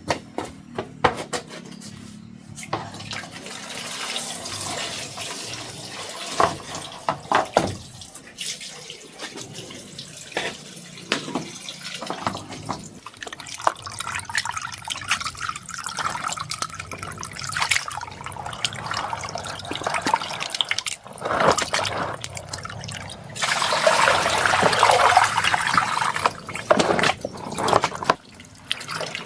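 Water splashing and trickling with small knocks, and a louder rush of water for a few seconds near the end.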